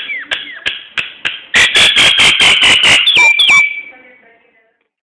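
Nias hill myna calling: sharp clicks and short falling whistles, then about a second and a half in a rapid run of loud, harsh notes that ends in two falling whistles.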